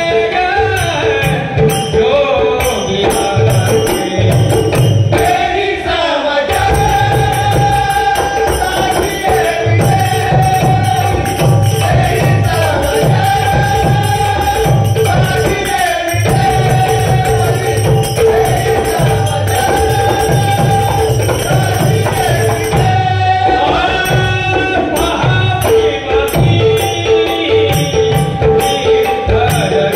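Group of men singing a Marathi devotional bhajan, a lead voice holding long notes, over small hand cymbals (tal) clashing in a quick steady rhythm and low drum beats.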